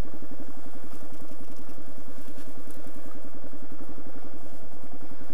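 Kawasaki KLR650's single-cylinder four-stroke engine running at a steady low speed as the bike rolls slowly along a dirt trail: an even, fast beat of firing pulses with no change in revs.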